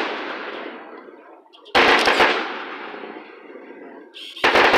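Aerial fireworks shells bursting: a loud bang with a few quick cracks about two seconds in, dying away in a long rolling echo, then another bang and crackle near the end.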